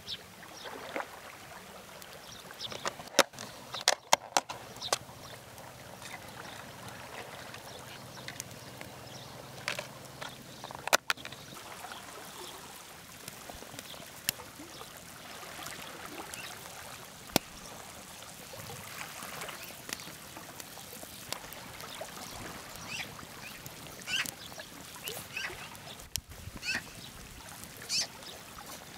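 Broth bubbling at a rolling boil in a metal hot pot over an open wood fire, with sharp crackles and pops from the burning wood, several of them close together a few seconds in and another about eleven seconds in.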